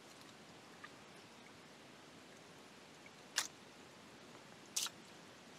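A dog lapping water from a cupped hand: mostly quiet, with two short wet slurps about a second and a half apart.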